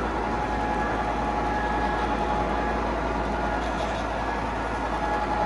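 Long model train pulled by eight model diesel locomotives running steadily along layout track: an even rolling rumble of wheels on rail with a steady high tone running through it.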